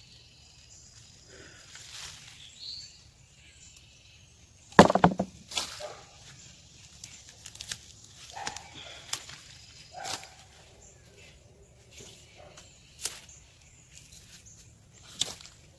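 Scattered knocks and rustles from digging and handling plants in a garden bed, the loudest about five seconds in, with a few faint bird chirps.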